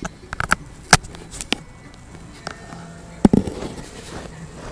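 Knocks, taps and rubbing from a tablet being handled right at its microphone while its charging cable is plugged back in, with sharp knocks about a second in and again past three seconds in.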